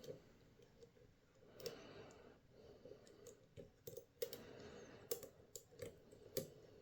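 Faint, irregular metallic clicks of a lock pick and tension tool working the pin stack inside a 6-pin euro cylinder during freehand picking.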